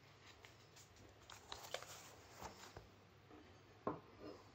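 Faint clicks and light taps of hands handling a turntable's parts and glass platter, with one sharper click just before the end.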